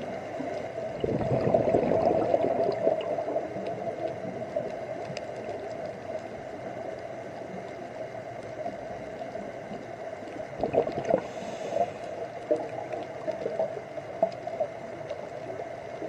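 Underwater sound with a steady hum and faint scattered clicks. A scuba diver's exhaled bubbles gurgle loudly about a second in and again in bursts around ten seconds in.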